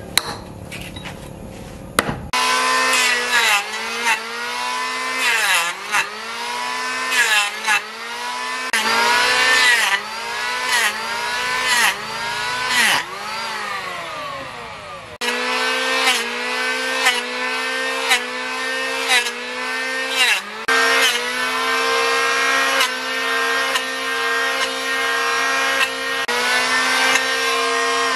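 A few sharp knocks at the start, then an electric hand planer running as it is pushed along a wooden log. Its motor hum sags in pitch and recovers about once a second as the blades bite into the wood on each pass.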